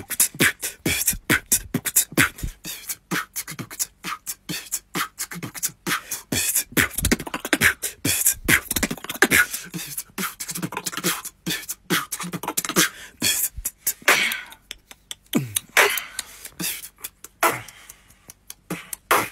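Human beatboxing: a fast, unbroken run of mouth-made drum hits and clicks.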